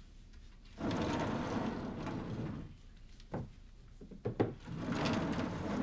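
Wooden sliding shoji door running along its track for about two seconds as it opens, a few soft knocks, then a second slide near the end as it is pulled along again.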